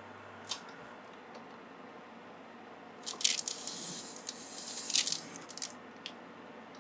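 Steady low hum of an oven baking, broken about three seconds in by two seconds of cloth rustling and sharp clicks as an oven mitt handles things at the oven, with a few more clicks after.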